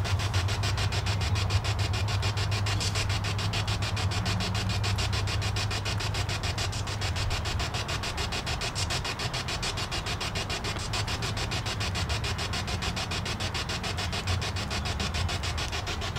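Ghost-hunting spirit box, a radio scanning rapidly through stations, sweeping: hissing static chopped into rapid, evenly spaced pulses over a steady low hum.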